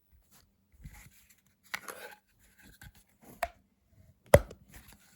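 Handling noise from a plastic knife sheath: scraping and rustling, then two sharp clicks about a second apart near the end, the second the loudest, as a piece snaps firmly into place in the sheath.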